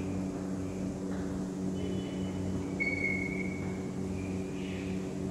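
Chalk squeaking in short high tones against a blackboard as lines are drawn, loudest about three seconds in. Under it runs a steady low electrical hum.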